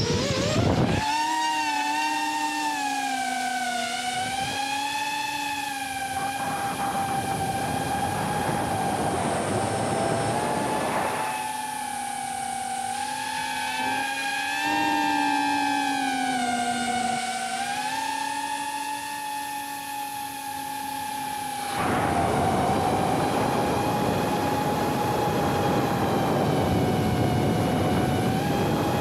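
A Tiny Hawk 2 Freestyle FPV drone's electric motors and propellers whining, heard from a camera mounted on the drone. The pitch climbs sharply as it lifts off, then rises and falls with the throttle. About three-quarters of the way through, a louder rush of air joins the whine.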